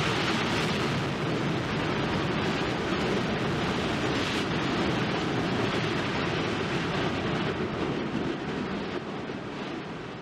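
Continuous rushing roar from Mount Yasur's lava vents spattering and degassing in the crater, steady, then easing off near the end.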